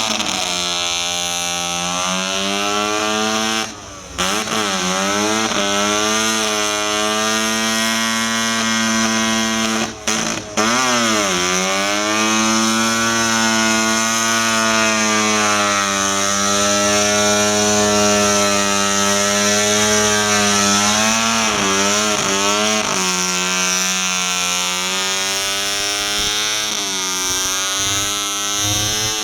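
Rotary engine of a Mazda 323 station wagon held at high revs in a burnout, the pitch wavering as the throttle is worked. Twice, a few seconds in and about ten seconds in, the revs drop sharply and climb straight back up.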